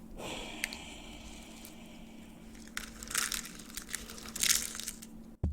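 Close-up crinkling and crumpling as an ASMR trigger, growing louder in bursts in the second half and ending with a short low thump.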